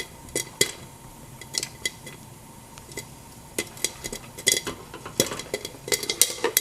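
Popcorn kernels popping in a pan on a stove hob: irregular sharp pops, a scattered few at first, coming faster in the second half.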